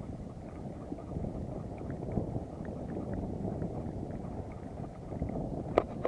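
Wind on the microphone over open sea, with the low wash of water around a small boat and faint scattered ticks. One sharp click comes near the end.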